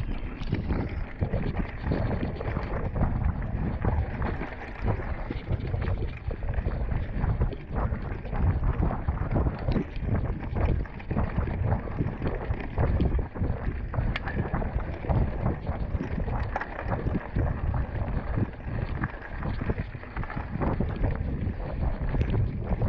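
Wind buffeting a GoPro's microphone in a continuous low rumble, with a constant run of short knocks and rattles.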